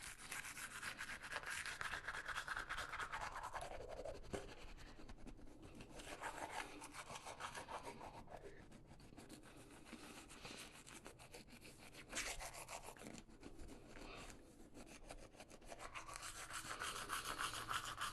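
Toothbrush scrubbing teeth with rapid back-and-forth strokes, a wet rasping sound whose tone shifts down and up as the brush moves around the mouth. The brushing eases off in the middle and picks up again near the end.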